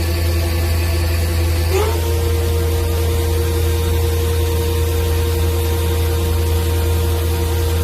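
Mazak Variaxis 630-5X II five-axis CNC machining center running: a steady low hum under a motor whine that rises in pitch about two seconds in, then holds steady.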